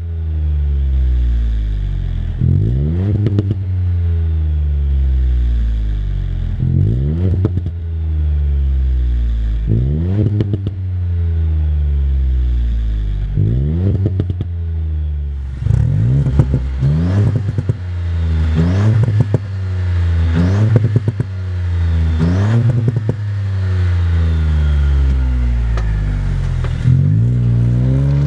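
Ford Fiesta Mk8 ST's turbocharged 1.5-litre three-cylinder engine, fitted with an aftermarket GPF-back exhaust, revved repeatedly while stationary. About nine sharp blips rise quickly and fall back slowly, with crackles from the exhaust as the revs drop. The blips come closer together in the second half.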